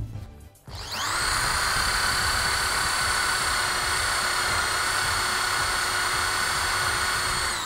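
Stanley STEL101 400 W corded electric drill starting up about a second in, its motor whine rising quickly to speed and then running steadily as an 8 mm bit bores through a 1 cm steel plate. The whine begins to drop at the very end as the drill winds down.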